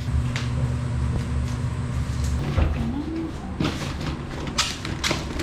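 A steady low mechanical hum, like an engine running, with a few sharp clicks and knocks.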